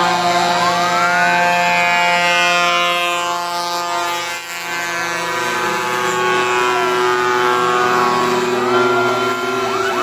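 Fire engine sirens as a convoy of fire trucks passes: a slow wail rises and falls over the first few seconds over a layer of held steady tones. A fast yelp of rapid repeated sweeps starts near the end.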